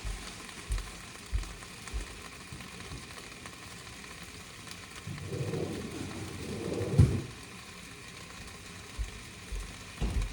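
Onions and spinach sizzling in a frying pan with a steady hiss. A few dull knocks come in the first couple of seconds, and a louder low drawn-out sound lasts about two seconds in the middle, ending in a sharp knock.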